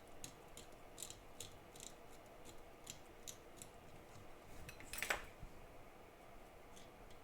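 Knife blade scraping leftover solder points off an iPhone 7 A10 CPU in short scratchy strokes, about two or three a second, with one louder scrape about five seconds in. The solder is being scraped away to leave a clean surface.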